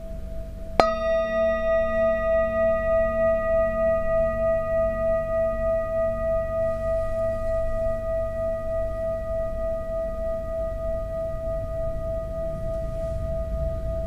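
Large metal singing bowl struck once about a second in, then ringing on as one deep hum with higher overtones above it. The hum pulses gently as it slowly fades.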